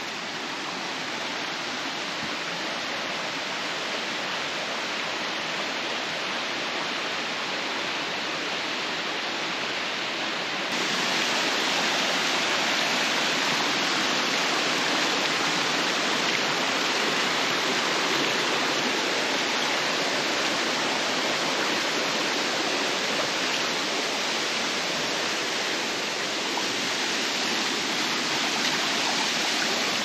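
A waterfall rushing steadily, a full flow after heavy rain the day before; the roar gets louder about a third of the way in.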